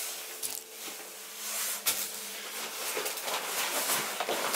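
Fabric and clothing rustling with a few light knocks as a person gets up and handles a backpack strap and gear.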